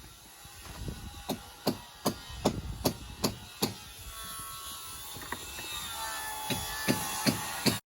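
A run of sharp knocks, about two or three a second, then a faint steady hum with a few more knocks near the end, all cutting off abruptly.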